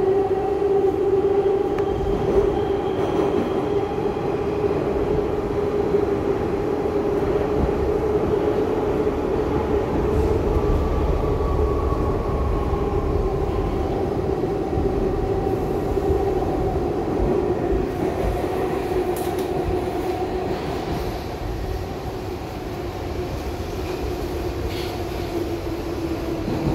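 R62A subway car running at speed through a tunnel, heard from inside the car: a steady hum over the rumble of wheels on rail, growing a little quieter near the end.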